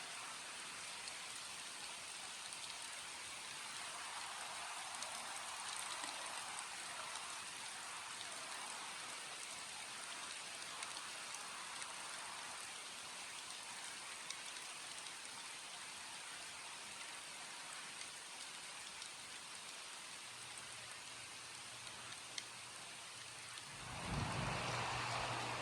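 Steady rainfall, a dense even patter with scattered individual drop ticks. A low hum comes in late, and a louder low rumble swells up near the end.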